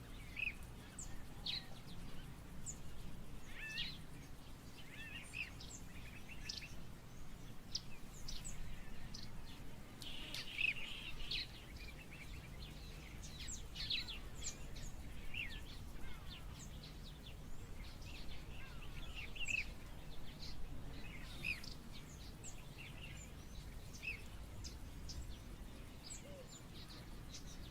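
Many short, high bird chirps and calls scattered throughout, over a steady low background rumble.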